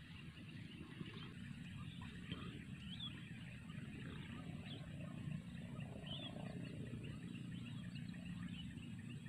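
Faint rural outdoor ambience: a steady low rumble with a few short, high chirps scattered through it.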